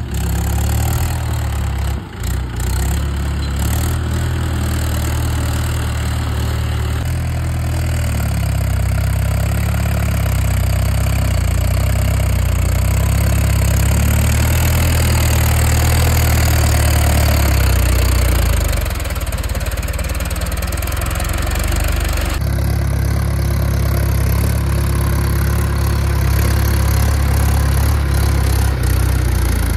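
Mahindra 575 DI tractor's four-cylinder diesel engine running steadily under load as it works through deep mud, with a low, even engine note that changes abruptly twice.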